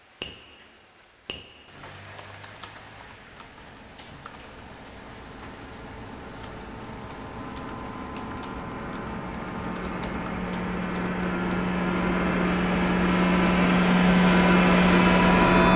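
Typing on a computer keyboard, a steady patter of key clicks. Underneath, a swell of noise with a low steady hum joining about halfway grows steadily louder until it is the loudest thing near the end.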